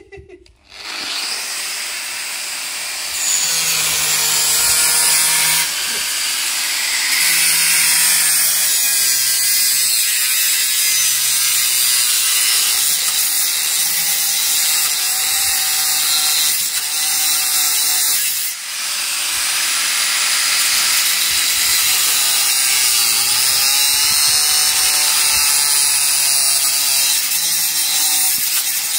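Angle grinder with a cutting disc spinning up and then cutting through a scooter's exhaust pipe, a loud, steady grinding, with a brief break about two-thirds of the way through.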